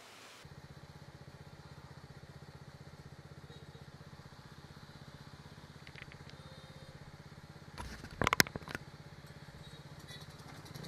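Bajaj Dominar 250's single-cylinder engine idling with a steady, evenly pulsing low hum while the bike stands in traffic. About eight seconds in, a short burst of loud sharp crackles.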